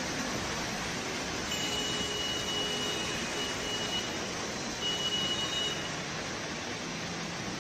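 Heavy rain falling as a steady, even hiss. A thin high tone sounds over it twice: for about two seconds starting a second and a half in, then for about a second a little later.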